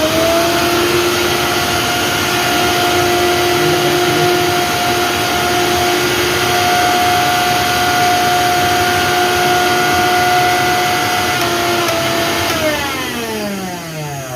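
A 750-watt mixer grinder motor running on its top speed, speed 3, with no jar fitted: a steady high whine that winds down, falling in pitch, near the end.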